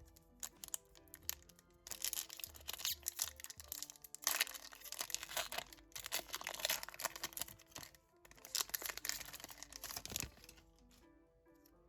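Plastic and foil packaging of Pokémon booster packs crinkling and tearing in four long stretches, over background music.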